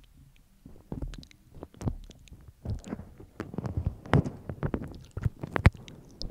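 Close-miked mouth sounds: wet lip smacks and tongue licking on the microphone, an uneven run of moist clicks and smacks that grows busier about halfway through.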